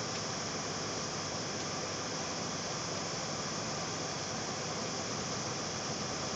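Steady hiss and whir of a running water-cooled desktop PC, its fans and cooling running with no change.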